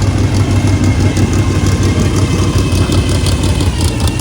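Car engine idling steadily with a deep, even hum. Light sharp ticks run over it throughout.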